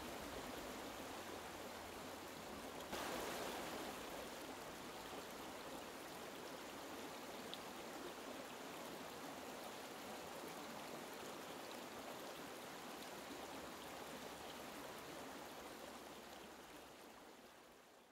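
Shallow stream water rushing over rocks in riffles, a steady wash that fades out near the end.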